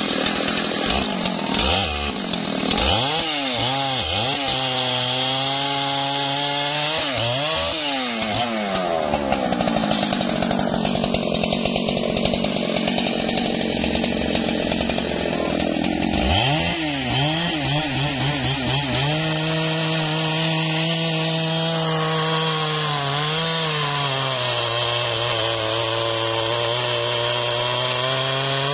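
Large Stihl two-stroke chainsaw cutting through a felled trembesi trunk. The engine's pitch sags and climbs several times as the chain bites and frees in the first few seconds and again about two-thirds of the way in, then holds fairly steady under load.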